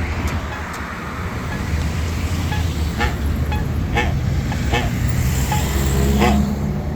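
Road traffic passing, with a low rumble that swells a few seconds in. From about three seconds in, a pedestrian push button's locator tone ticks about once a second.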